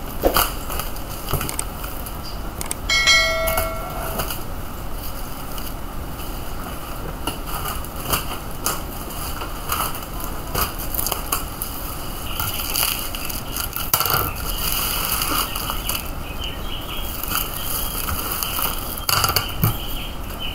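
Plastic courier bag crinkling and rustling as it is handled and pulled off a shipping box, in irregular bursts. A short beep sounds about three seconds in.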